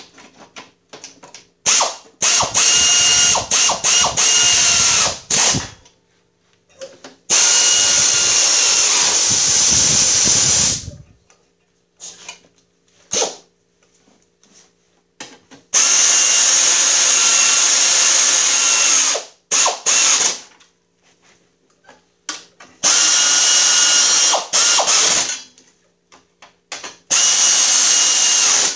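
Pneumatic air ratchet running bolts in, in about five runs of two to four seconds each with short blips between: a steady high whir over a loud air hiss, stopping and starting as each run ends.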